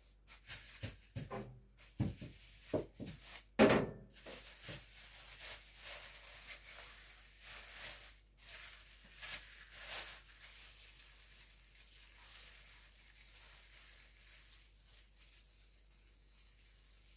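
Plastic wrap crinkling and rustling as a ball of dough is handled and unwrapped by hand, with a few thumps and knocks on the counter in the first few seconds, the loudest about four seconds in. The rustling fades out about two-thirds of the way through.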